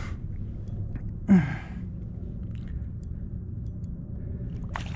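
A man's short grunt with a falling pitch about a second and a half in, over a steady low rumble, and a sharp click near the end.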